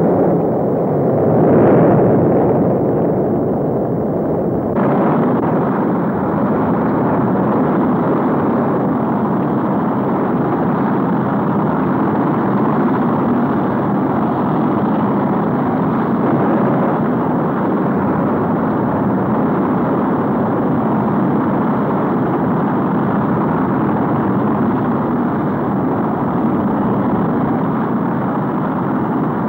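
Saturn V rocket lifting off, its five F-1 first-stage engines making a continuous rumbling roar of exhaust noise. It swells about two seconds in, grows brighter about five seconds in, and then holds steady.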